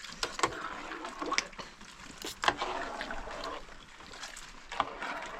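Water splashing and sloshing, with scattered knocks and clinks.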